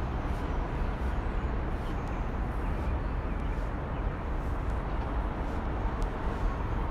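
Heavy truck diesel engine running at a steady idle, a continuous low rumble.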